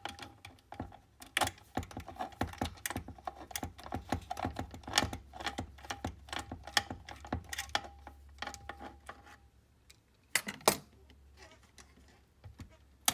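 Light metallic clicking and rattling from hands working the focus motor and its wiring loose inside a Kodak carousel slide projector's metal chassis. It is busy for about nine seconds, then goes quieter, with a couple of louder knocks.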